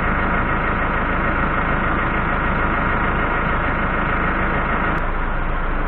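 Cummins ISBe diesel engine idling steadily at about 700–800 rpm, running evenly with no fault showing for now. A single short click comes about five seconds in.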